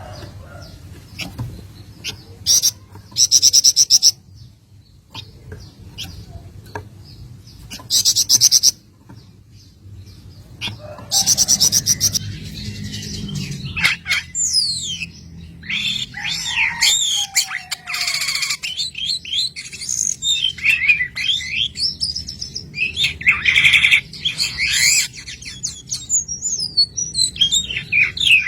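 Songbird song. Loud, buzzy rattling trills come about three, eight and eleven seconds in, then a busy run of varied whistled glides and chirps.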